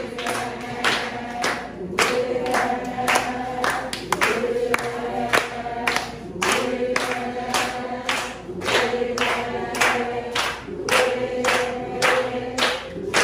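Church congregation singing together in unison, with steady rhythmic hand clapping about twice a second keeping the beat.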